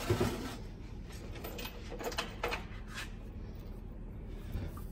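Steel bolts being handled and tried at a bus transmission's bell housing: a short rustle at the start, then a few light metal clicks.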